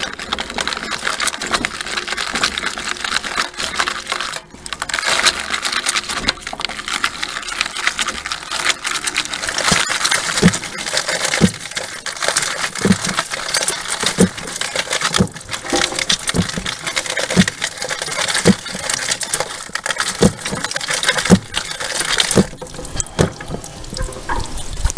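Hand-cranked grape crusher's toothed rollers crushing white grapes: a dense crackling of berries bursting, with juice splashing into the tub below. There is a brief lull about four seconds in, and in the second half a low thump comes about once a second.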